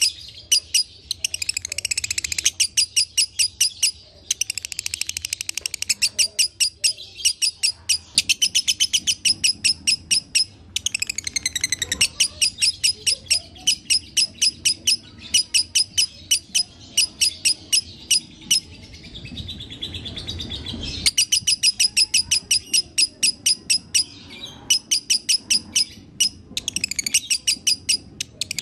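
Fischer's lovebird singing a long, rapid chattering song of sharp high chirps repeated in quick succession, run after run with brief breaks: the 'dobelan' (doubled) song that lovebird keepers prize. About two-thirds through, the chirping pauses for a couple of seconds under a low rumble before starting again.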